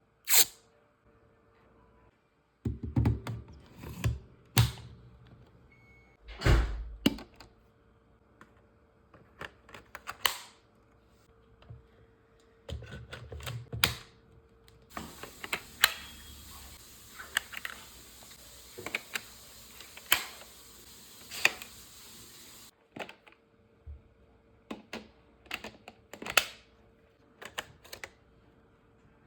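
Irregular sharp clicks and knocks of hard plastic parts being handled and fitted together while unpacking a cordless stick vacuum, with a few heavier thuds. A light steady hiss runs in the middle and cuts off suddenly.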